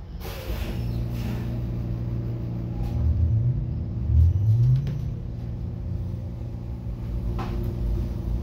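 Battery-electric articulated bus (New Flyer XE60) pulling away from a stop, heard from inside the cabin. A burst of air hiss comes first, then a low rumble with a steady motor hum. The motor's whine climbs in pitch twice as the bus speeds up.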